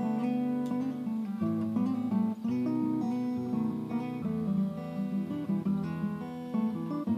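Background music: an acoustic guitar playing a run of plucked notes over lower bass notes.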